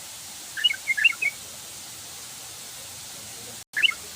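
Yellow-vented bulbul (trucukan) singing a short burst of quick, bubbly chattering notes about half a second in. Another brief phrase follows near the end, right after the sound cuts out for a moment.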